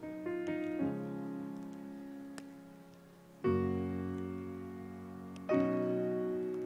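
Slow piano music: sustained chords struck every couple of seconds, each left ringing as it fades.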